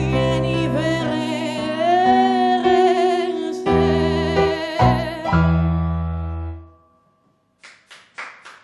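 A woman sings the closing phrases of a song with vibrato over sustained piano chords; the song ends and dies away about seven seconds in. Scattered clapping starts near the end.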